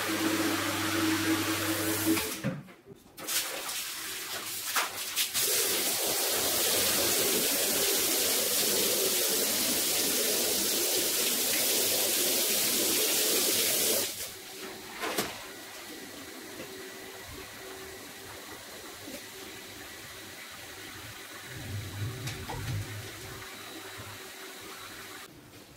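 Water spraying onto a rug in a loud, steady hiss from about five to fourteen seconds in, then much quieter. A machine hum at the start cuts off after about two seconds.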